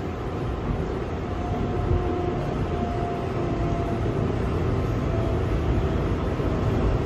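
R142A subway car running on elevated track, heard from inside the car: a steady rumble of wheels on rail that grows slightly louder. A faint high whine rides over it in the first half.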